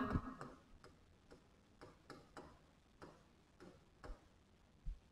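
Faint, irregular clicks and taps of a stylus on the glass of an interactive display board during handwriting, about a dozen light ticks unevenly spaced, the loudest near the end.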